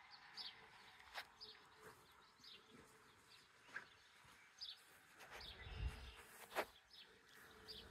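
Near silence with faint birds chirping: short high chirps repeating about once a second, plus a few soft clicks.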